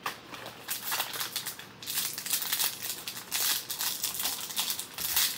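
Crinkling of a foil blind-bag wrapper being crumpled and opened by hand, in irregular crackles that are thickest from about two to four seconds in.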